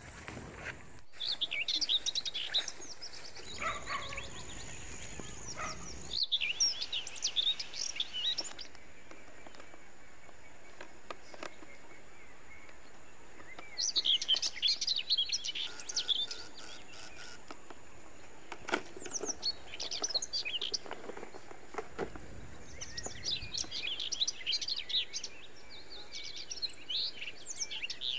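Small birds chirping and twittering in repeated bursts of quick high notes, with short quiet gaps between the bursts.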